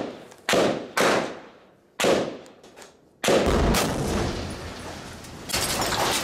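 Rifle gunfire in a narrow stone alley: single shots about a second apart, each with a long echo, then from about three seconds in a longer unbroken stretch of heavier firing that grows louder near the end.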